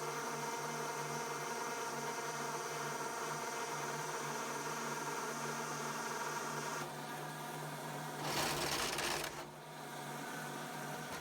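Machinery running with a steady hum, its tone dropping slightly about seven seconds in. About eight seconds in comes a loud hiss lasting about a second.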